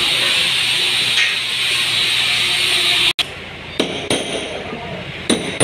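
A steady, loud background sound, most likely music, cuts off abruptly about three seconds in. It is followed by a few sharp metallic clinks and knocks of a hand tool against the inner metal panel of a car door being worked on.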